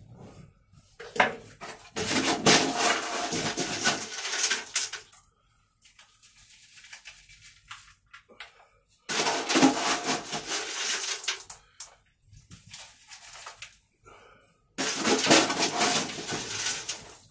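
Potting soil being scooped and poured from a plastic scoop into a plastic basket pot around a tree's roots, heard as three bursts of gritty rustling and scraping, each a few seconds long, with lighter scuffing between them.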